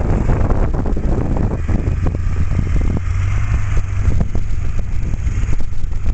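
The 7.3-litre Powerstroke diesel engine of a 2002 Ford F-250 Super Duty running under load as the truck works its snow plow and pulls away, a steady low hum, with wind buffeting the microphone.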